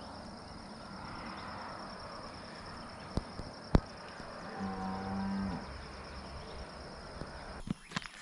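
A cow mooing once, a single low call of about a second just past the middle, over a quiet rural background with a steady high tone. Two sharp clicks come shortly before the moo, the second one the loudest sound.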